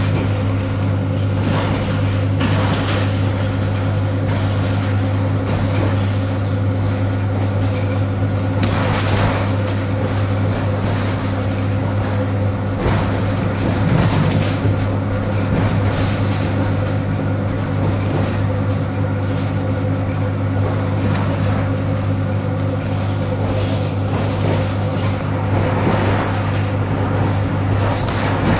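Ride noise inside an ED9M AC electric multiple unit in motion: a steady low hum with evenly spaced overtones over the constant running noise of the wheels on the rails. A few brief louder clatters stand out, about three seconds in, near nine and fourteen seconds, and near the end.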